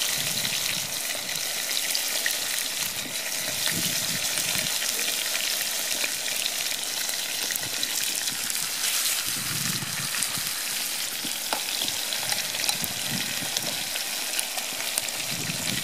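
Beef steaks sizzling steadily in a frying pan over a wood fire.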